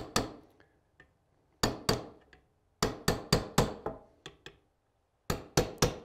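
Small hammer tapping a roll pin used as a punch, driving the roll pins of a Timney rifle trigger into their holes. The taps come in quick clusters of two to five, with pauses of about a second between clusters.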